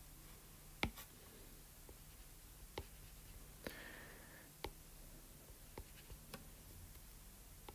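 Faint, scattered clicks and taps of a stylus on a drawing tablet, about eight in all, with a brief soft scratch of the pen a little before the middle, over quiet room tone.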